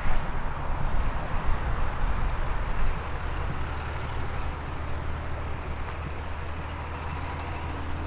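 A motor vehicle's engine running close by: a low rumble, then a steady low hum from about three seconds in that stops near the end. A walker's footsteps sound on a park trail under it.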